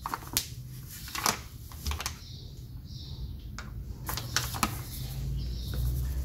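Paper flour bag crinkling and rustling in the hand as flour is poured from it into a plastic bowl, with several sharp, crisp crackles at irregular moments.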